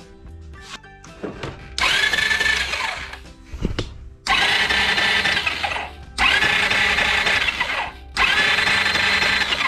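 Honda Fusion scooter's electric starter motor cranking the engine in four bursts of about two seconds each, the first about two seconds in, each with a whine that climbs as it begins and then holds. The engine does not fire: it is being cranked for a spark check, and spark is present, so the fault points to fuel delivery and the carburettor.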